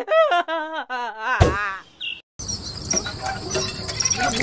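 A high, wavering voice-like sound ending in a quick falling glide, then a sudden cut to outdoor background noise with insects chirping.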